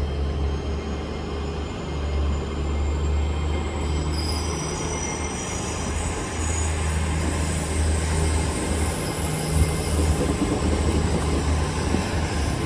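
Train running along the track with a steady low rumble, a high rising whine near the start, and thin high-pitched wheel squeals joining from about four seconds in.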